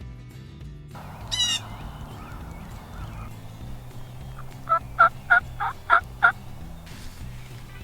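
Wild turkey calling: a brief fast rattling call about a second in, then a run of six loud yelps, about three a second, near the end.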